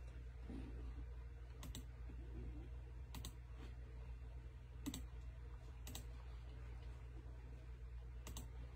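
Computer mouse button clicked about eight times, several in quick double pairs, over a low steady hum; the mouse may not be working.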